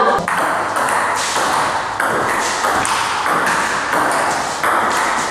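Table tennis rally: a celluloid ball clicking off rubber paddles and bouncing on the table, back and forth.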